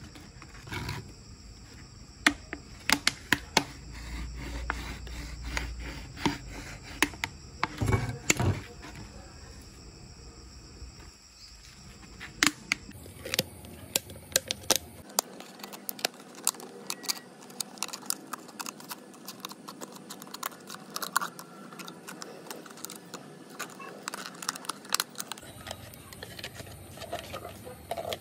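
Thin plastic water bottles being cut with a knife and scissors: irregular crackling, crinkling and sharp snipping clicks as the plastic bends and splits. A short low rumble comes about four to six seconds in.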